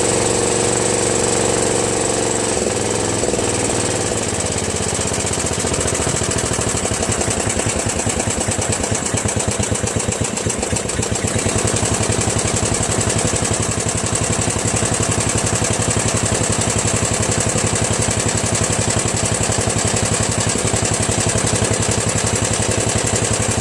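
Murray Select 13.5 riding mower engine running: a steady, higher-speed note drops in pitch a few seconds in as it is throttled down, then it settles into an even, rapidly pulsing idle. It is an engine the owner judges worn, with low compression (75 psi) and valves due for replacement.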